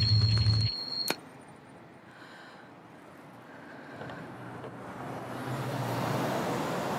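A loud low hum with a steady high tone cuts off less than a second in, followed by a sharp click. Then a faint, even background noise slowly grows louder.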